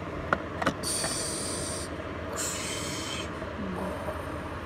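Small plastic dollhouse pieces being handled: two light clicks in the first second, then two stretches of hissy plastic-on-plastic rubbing as a plastic doll is set into a toy crib.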